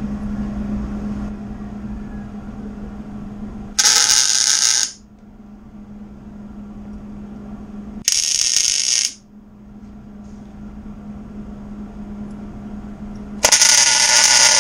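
MIG welder arc crackling in three short bursts of about a second each, a few seconds apart: tack welds joining two sections of 3-inch steel exhaust pipe at a bevelled joint. A steady low hum runs underneath.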